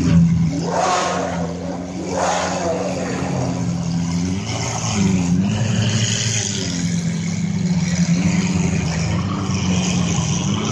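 Lamborghini sports car engines running at low speed as the cars roll past in a slow convoy, their note steady with small dips in pitch. Two short rises in revs come in the first few seconds.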